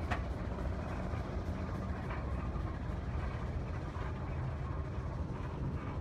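Steam traction engine working under load, pulling a gang plow: a steady low rumble with a quick even beat of about four to five a second. A single sharp knock right at the start.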